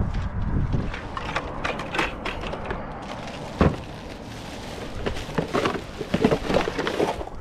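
Footsteps crunching and rustling through roadside brush and litter, with scattered clicks and one sharp knock about three and a half seconds in.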